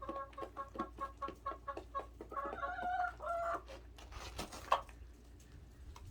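Chickens clucking: a quick run of short clucks, about five a second, then a louder, longer two-note call about two and a half seconds in. A sharp tap comes near the end.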